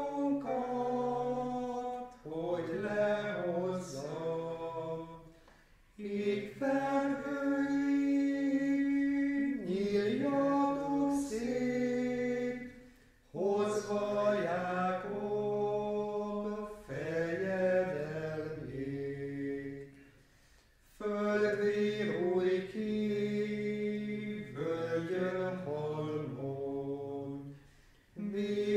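Men's voices singing a Hungarian Advent hymn unaccompanied, in several pitches at once. The melody runs in phrases broken by short pauses.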